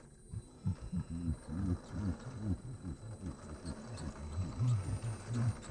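Electric motor and geared drivetrain of a Traxxas TRX-4 RC crawler whining in short rising and falling bursts as the throttle is worked while it crawls over rock.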